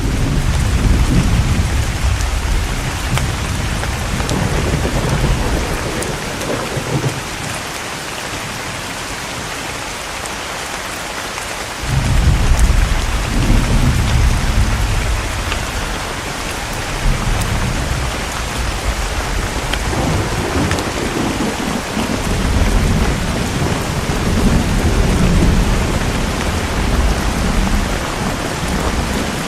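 Steady rain falling, with deep rolling thunder rumbling under it through most of the stretch; the rumble dies away for a few seconds and comes back suddenly about twelve seconds in.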